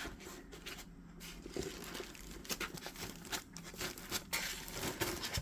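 Packaging rustling and crinkling as it is handled and pulled off during unboxing, in irregular short crackles.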